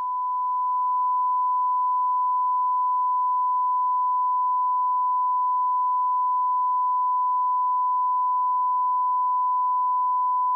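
Steady 1 kHz test tone, the audio of a colour-bar test transmission, rising to full level during the first second and then holding unchanged.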